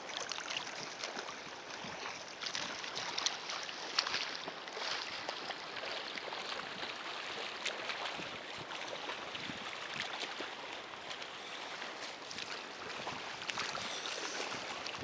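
Sea water splashing: many short, irregular splashes over a steady wash of water, as swimmers move off through the water.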